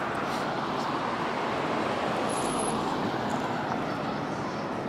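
Road traffic passing steadily: a continuous hum of tyres and engines from a stream of cars.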